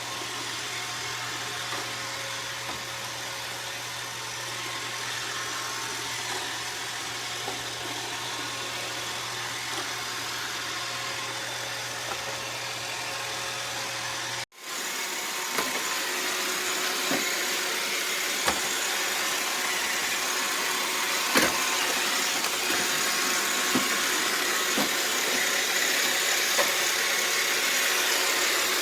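iRobot Roomba robot vacuum running, a steady whirring hiss of its motor and brushes. About halfway through the sound cuts abruptly and resumes a little louder, with scattered light knocks.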